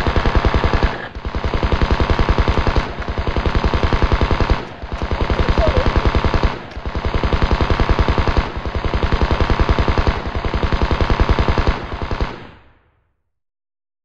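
M16 rifle firing fully automatic in long bursts of a second and a half to two seconds each, with brief breaks between them. The firing stops about twelve and a half seconds in.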